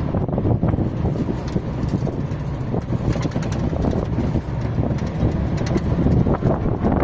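Wind buffeting the microphone: a loud, uneven low rumble that rises and falls without a steady pitch.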